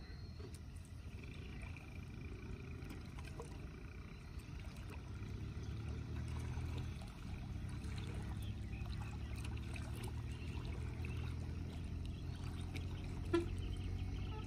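Water trickling and splashing quietly around a small wooden fishing boat, over a steady low rumble, with one sharp knock near the end.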